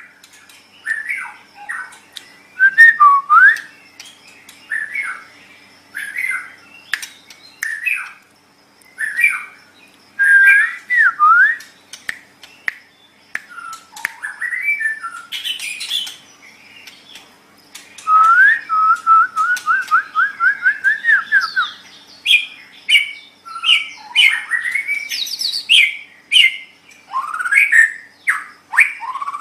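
White-rumped shama (murai batu) singing a varied series of short whistled phrases with brief pauses between them, including a fast run of repeated rising notes a little past halfway. A faint steady hum sits underneath.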